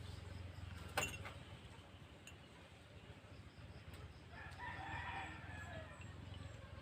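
A rooster crowing once in the background, a call of over a second starting about four and a half seconds in. A sharp click comes about a second in, over a low steady hum.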